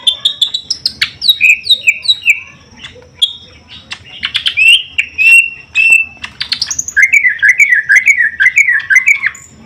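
Cucak ijo (green leafbirds) calling: sharp chips and short falling whistled notes, a few held whistles, then a rapid warbling run of up-and-down notes from about seven seconds in.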